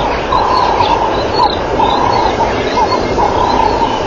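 Repeated short bird-like calls and chirps over a steady background hiss.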